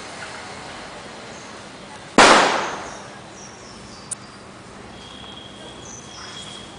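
A single loud bang about two seconds in, fading out over about half a second, with small birds chirping at intervals.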